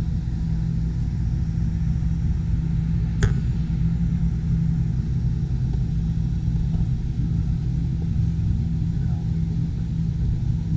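Steady low rumble and hum inside an enclosed Ferris wheel gondola as the wheel turns, with one sharp click about three seconds in.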